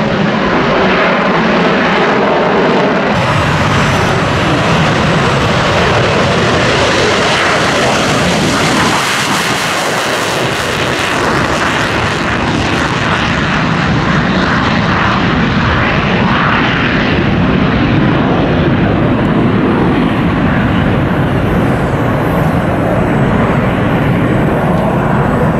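Single-engine F-16 Fighting Falcon taking off in afterburner and climbing away. It is a loud, steady jet noise that starts about three seconds in, and its hiss thins out in the second half as the jet draws away. Before that, a different fighter jet is heard briefly.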